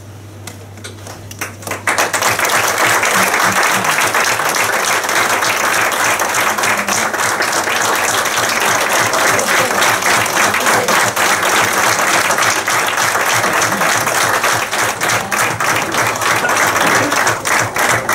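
A room full of people applauding: the clapping breaks out suddenly about two seconds in and keeps going steadily and loudly.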